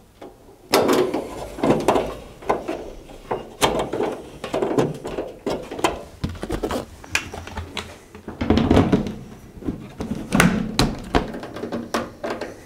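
Zanussi tumble dryer's sheet-metal side panel and top panel being handled and fitted back onto the cabinet: irregular knocks, clunks and short scrapes.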